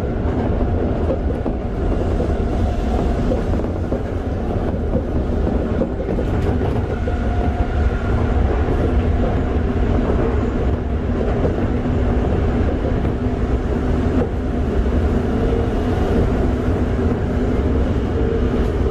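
Toei 5300 series train (Mitsubishi GTO-VVVF) running steadily along the line, heard from inside the car: a constant rumble of wheels on rail with some clatter and faint steady hum tones.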